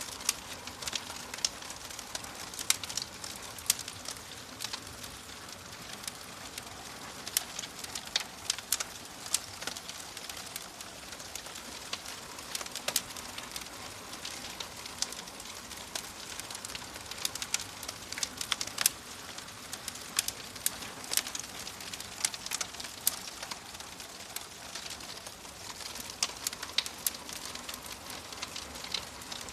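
Wood fire crackling: frequent, irregular sharp pops and snaps over a steady soft hiss.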